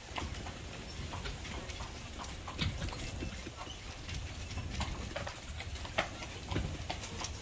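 Hooves of a carriage horse, a Welsh pony crossed with a Standardbred, clip-clopping on a brick street in an irregular run of sharp clacks over a steady low rumble.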